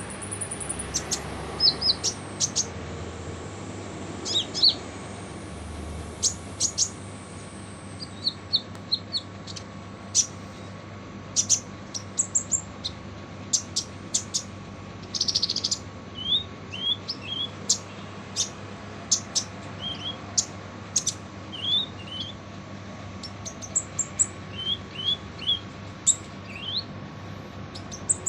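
Kolibri ninja, a Leptocoma sunbird, giving rough, harsh calls: rapid sharp high chirps and short rising notes in scattered bursts, over a steady faint hum.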